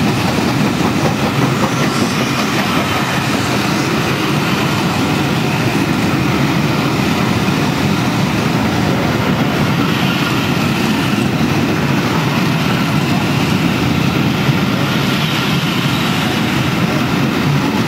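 Passenger train coaches rolling past at speed, a steady loud rumble of wheels on the rails.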